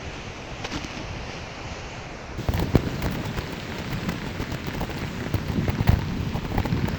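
Rolling noise from a DIY Onewheel riding over a rough path, with a dense crackle of small knocks and rattles that grows louder about two and a half seconds in.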